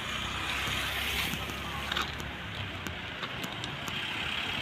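Steady outdoor background noise: a low rumble and hiss, with a few faint ticks.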